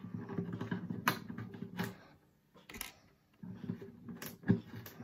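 Steel strings of a Fender DG60CE acoustic guitar being loosened by hand, the slack strings buzzing and rattling low, with several sharp clicks of handling and a brief quiet pause near the middle.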